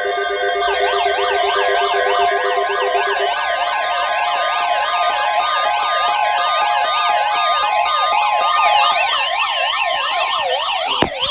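Several weather alert radios sounding their warbling siren alarms at once, the rising and falling sweeps overlapping at different rates: the radios are alerting to a severe thunderstorm watch. The sweeps start under a second in and grow busier toward the end.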